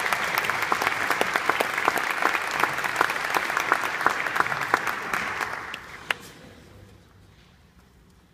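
Audience applauding, a dense patter of many hands clapping that thins out and stops about six seconds in, with one last lone clap.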